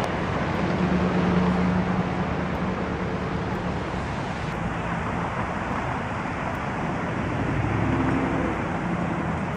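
Steady traffic noise from cars and buses moving slowly along a snowy city street, with an engine's hum swelling about a second in and again near the end.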